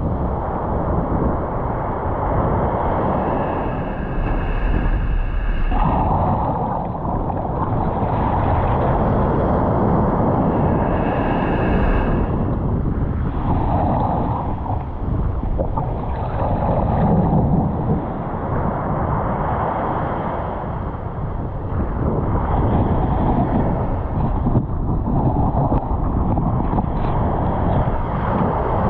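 Surf washing onto a beach, with wind rumbling on the microphone. The noise swells and eases every few seconds as the waves come in.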